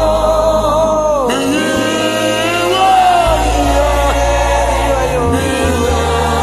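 Gospel song: a lead voice sings long, bending notes over keyboard and bass, with the bass notes changing every second or two.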